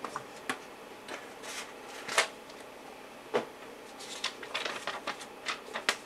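Handling noise: scattered clicks and brief rustles of small objects being moved about. The sharpest click comes about two seconds in, and a quick run of clicks fills the last two seconds.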